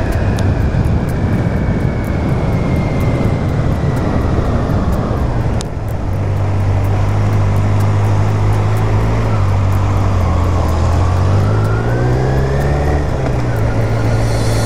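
Kawasaki Z900's inline-four engine running under way with a steady rush of riding noise. The engine note falls over the first few seconds as the bike slows, dips briefly near the middle, then climbs again as it accelerates near the end.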